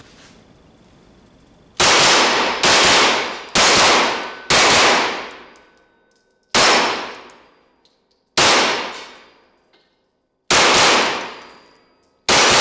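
Chiappa CBR-9 Black Rhino semi-automatic 9 mm Luger carbine firing nine single shots, each followed by a long echo off the walls of an indoor range. The first four shots come about a second apart, after which they slow to gaps of one to two seconds.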